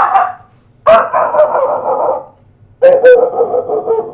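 A man imitating a dog yapping with his voice: three rapid strings of yaps, each about one and a half seconds long, each a little lower in pitch than the one before.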